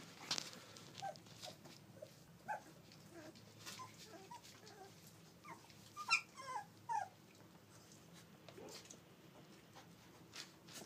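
A litter of young puppies making short, high squeaks and whines as they mouth and play-fight, with a louder run of squeals about six to seven seconds in.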